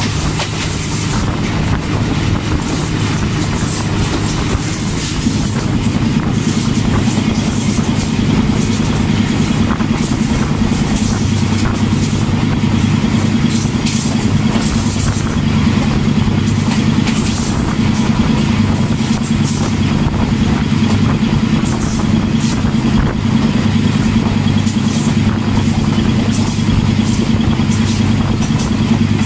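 ZCU-20 (GE U20C) diesel-electric locomotive's engine running steadily under power, heard from aboard the moving train over the rumble and clatter of wheels on rail. The engine note grows stronger about six seconds in.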